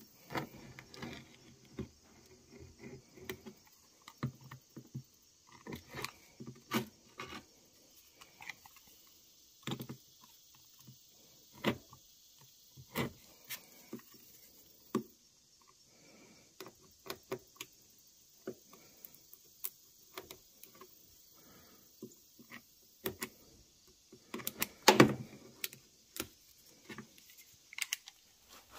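Scattered small handling noises: clicks, taps and rustles of hands working with tape and emblem pieces. A louder cluster of knocks comes near the end.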